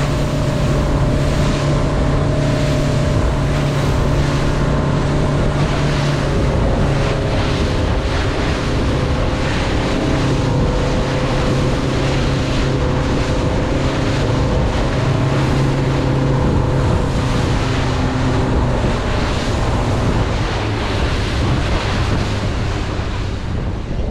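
A motorboat's engine running at a steady pitch, with the rush of water and waves and wind buffeting the microphone.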